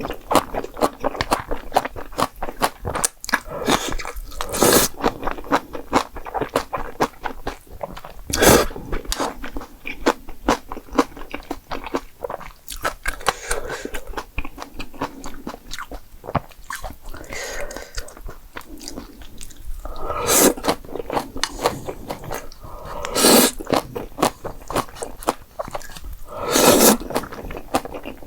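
Close-miked eating: steady chewing with many small wet clicks, and several louder bites or slurps spread through.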